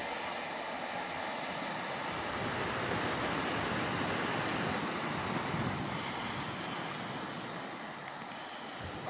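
Steady rushing noise of wind and sea along the sea wall, mixed with the fading rumble of a train moving away down the coastal line.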